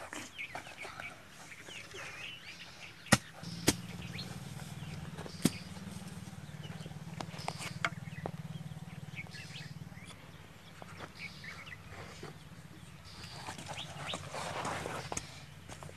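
Birds chirping over a steady low hum, with a hand hoe chopping into dry soil: three sharp knocks in the first few seconds, then scraping and digging.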